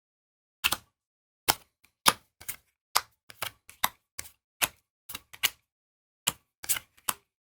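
Trading cards being flicked through one at a time, each card making a short, sharp snap, irregularly at about two to three a second.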